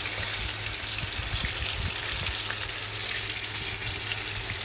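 Chicken pieces frying in hot oil, a steady sizzle with small crackles.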